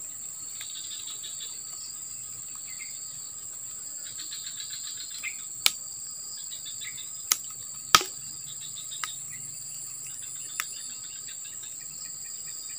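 Steady high-pitched chorus of insects, with stretches of faster pulsing trills and a few sharp clicks, the loudest about eight seconds in.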